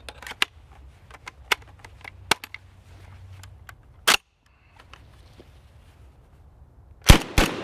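Small metallic clicks and rattles as the DDI Puma 12-gauge semi-automatic bullpup shotgun is reloaded, with a sharp clack about four seconds in as the action closes. Near the end comes the start of a rapid string of loud 12-gauge shots, about a third of a second apart, each echoing under the range cover.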